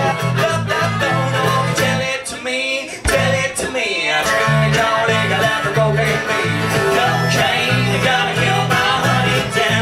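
Live acoustic folk-country music: strummed acoustic guitar with harmonica and some singing, with a short dip and a sharp click about three seconds in.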